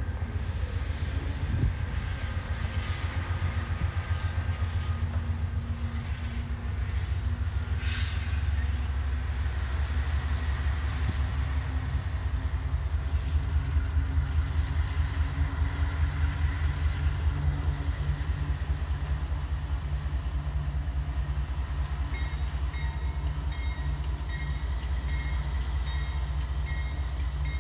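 Diesel locomotives passing, their engines a deep pulsing rumble that swells to its loudest around the middle and stays strong to the end.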